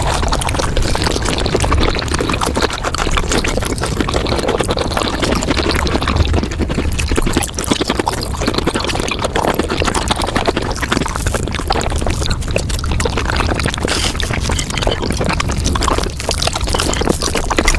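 Mukbang eating sounds played at five times speed: a dense, unbroken chatter of chewing, crunching and wet mouth clicks.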